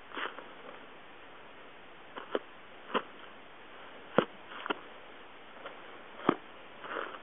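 Short, sharp movement sounds of a person performing a praying mantis kung fu form: quick knocks and swishes from steps, strikes and clothing, about eight in all, the two loudest about four and six seconds in, over a steady hiss.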